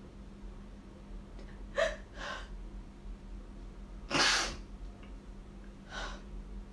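A woman crying: four short breathy gasps and sobs, the longest and loudest about four seconds in.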